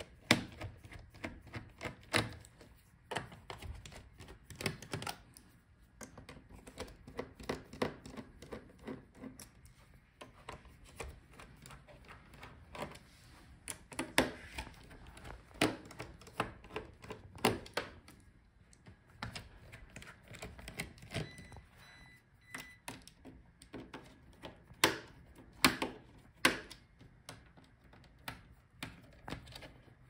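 A small screwdriver turning out the laptop's bottom-case screws, with irregular clicks and taps of the bit and loose screws against the case.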